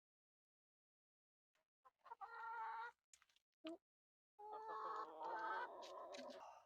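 Backyard laying hens calling and clucking: a short call about two seconds in, then a longer run of calls starting past the halfway point.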